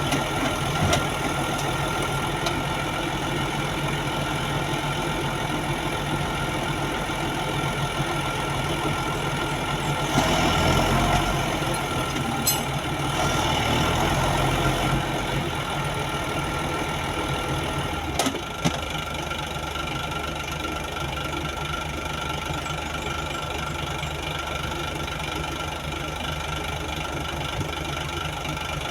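A crane's diesel engine runs steadily. It grows louder for a couple of seconds about ten seconds in, and again around thirteen to fifteen seconds. A sharp click sounds near eighteen seconds, after which the engine runs a little quieter.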